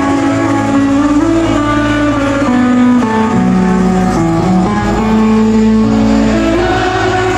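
Live rock band playing loud: an electric guitar carries a melody of held notes that step up and down, over bass guitar and drums.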